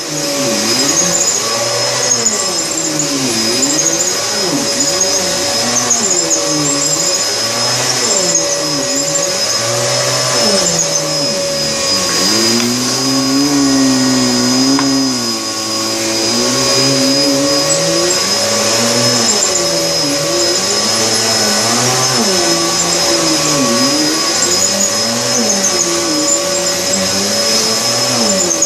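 Vacuum cleaner running on carpet with a steady motor whine. Its lower tone rises and falls about every two seconds as the head is pushed and pulled back and forth.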